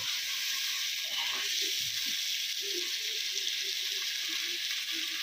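Chicken and onion-tomato masala paste sizzling steadily in hot oil in a non-stick pot, stirred with a wooden spatula.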